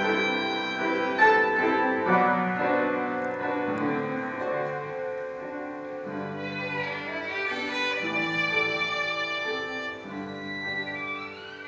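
Violin with piano accompaniment playing a melody of long held notes, with slides between some of them, gradually growing softer.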